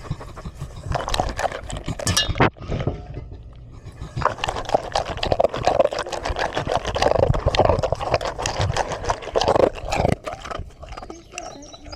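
Dog munching, with rapid wet chewing clicks and smacks. There is a short lull about three seconds in, and the chewing is busiest from about four to ten seconds in.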